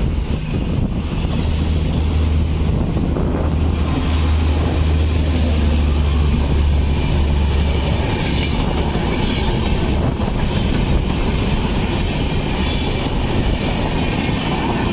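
An Indian Railways electric locomotive passes at speed hauling a Humsafar Express. A strong low hum dominates for about the first eight seconds, then gives way to the steady noise of the passenger coaches rolling by on the track.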